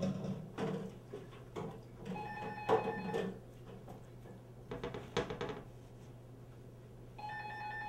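Dishes and utensils clattering in a kitchen sink as they are washed, over a steady hum. An electronic phone ring sounds about two seconds in and again, longer, near the end: an incoming call.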